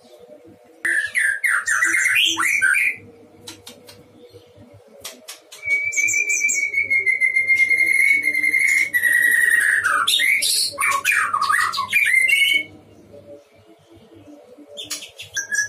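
White-rumped shama singing in loud bursts. A quick phrase of rising and falling notes comes about a second in. A second phrase opens with a long, even whistle and breaks into fast, varied notes, and a third phrase starts near the end.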